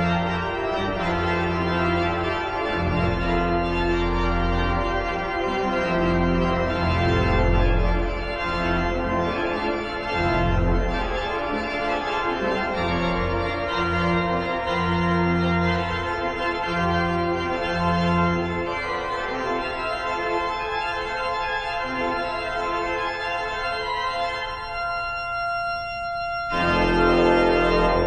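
Church organ playing full chords over sustained deep pedal notes. Near the end it thins to a few high held notes for a couple of seconds, then the full sound returns louder.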